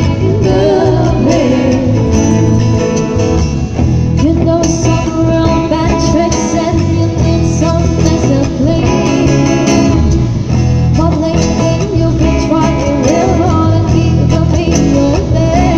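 Live band music: a woman singing into a microphone over amplified electric guitars, with a steady low bass line.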